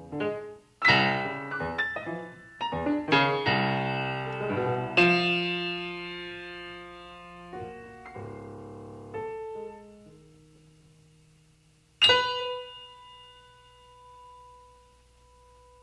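Solo piano music: a quick run of struck notes and chords that slows into held chords and dies away, then a single note struck about twelve seconds in that rings on, slowly fading.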